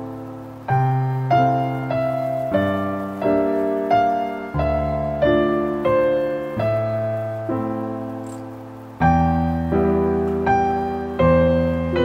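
Background piano music: a slow melody of single notes and chords, each struck note ringing and fading before the next, about one every two-thirds of a second.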